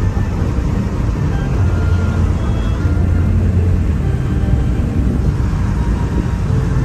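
Steady road and engine noise heard from inside a moving car cruising on a highway.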